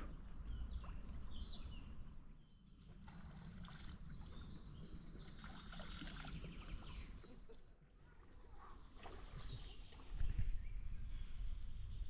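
Faint outdoor ambience by a river: a steady low rumble with a few faint bird chirps, the rumble growing louder near the end.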